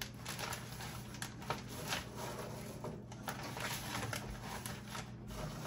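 Faint rustling and small clicks of a paper towel being tucked into a bag of cooked bacon crumbles.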